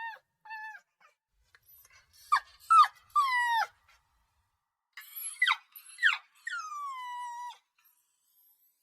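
Puppy crying: two short high whimpers, then two bouts of sharp yelps that drop steeply in pitch, each bout ending in a longer whine that falls and trails off.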